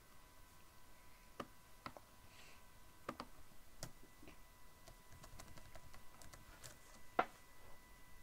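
Computer keyboard keys clicking at an irregular pace as text is deleted and typed, one click louder about seven seconds in, with a faint steady high tone underneath.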